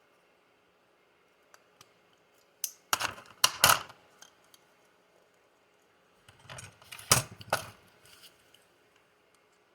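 Small plastic RC buggy suspension parts, the C block and its inserts, being handled and pressed together: two bursts of sharp clicks and rattles, about three seconds in and again around seven seconds in.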